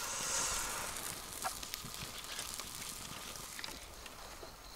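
Wood campfire crackling faintly, with scattered small pops over a soft outdoor background and a brief rustle of leaves near the start.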